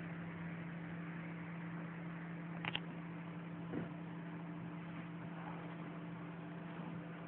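Steady low hum with an even hiss, broken by a short, sharp sound a little under three seconds in and a fainter one about a second later.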